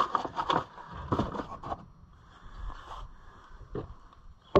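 Small metal parts and tools being handled: two short runs of clicks and rattles in the first second and a half, then a few scattered clicks, with a sharp one at the end.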